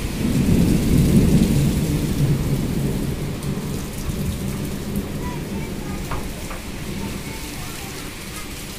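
Heavy storm rain pouring down with gusting wind. A low rumble is loudest in the first couple of seconds and slowly eases off.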